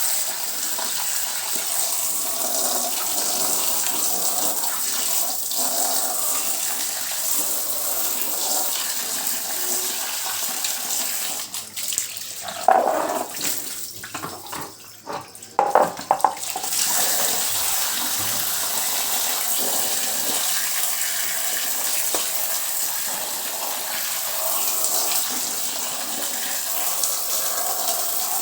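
Water running steadily from a tap, with the flow broken off for a few seconds about halfway through, when there are a few loud knocks before it runs again.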